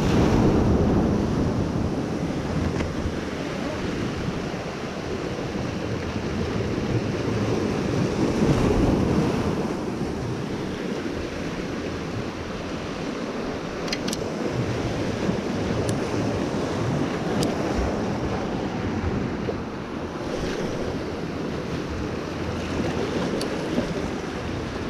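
Ocean surf breaking and washing over the boulders of a rock jetty in a steady rush, with a heavy wave crash at the start and another surge about eight seconds in.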